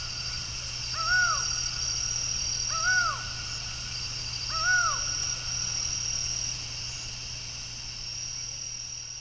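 Laughing falcon calling: a single arched, pitched note that rises and falls, given three times at steady intervals of about two seconds, then stopping about halfway through. A steady high-pitched pulsing trill runs behind it.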